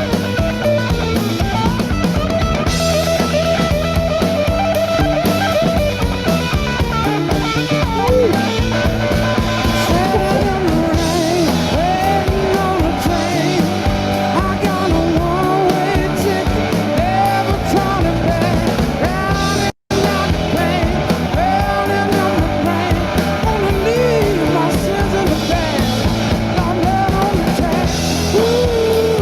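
Blues-rock band recording playing loudly: electric guitar with bending notes over drums and bass. The sound cuts out for an instant about two-thirds of the way through.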